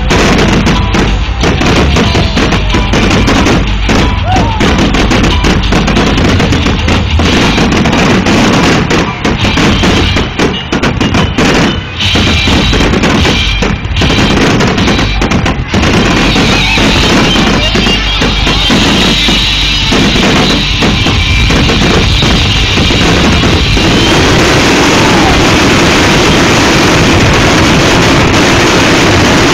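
Fireworks finale barrage: a rapid stream of overlapping booms and crackles, very loud on the phone's microphone. After about 16 s the separate bursts merge into one continuous crackling din.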